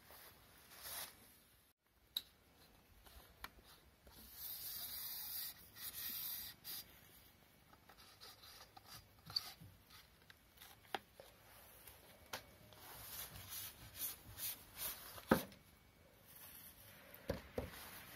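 Plastic locking collar on an aluminium telescopic pool-skimmer pole being twisted and worked by hand, giving quiet rubbing and scraping. There is a longer hiss of rubbing between about four and six and a half seconds in, and scattered sharp clicks, the loudest about fifteen seconds in.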